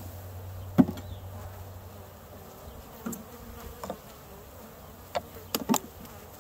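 Package of honeybees buzzing steadily in its screened shipping box as it is opened, with sharp knocks from handling the wooden package and its syrup can: one about a second in and three close together near the end.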